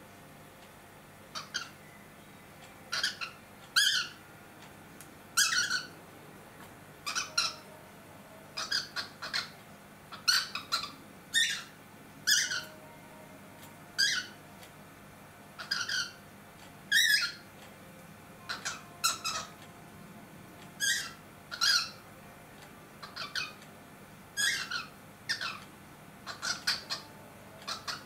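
Cockatiel calling: short, high, shrill calls repeated singly and in quick pairs, about one to two a second, starting about a second in.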